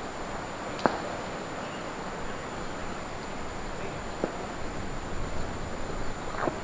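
Open-air ground ambience: a steady wind-like hiss on the microphone with a thin high-pitched whine underneath. A short sharp click comes about a second in, a fainter knock about four seconds in, and a few small knocks near the end.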